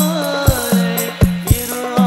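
Rebana ensemble performing sholawat: men's voices singing a devotional melody over rebana frame drums beating a steady pattern of strong strokes, each followed by a short low hum.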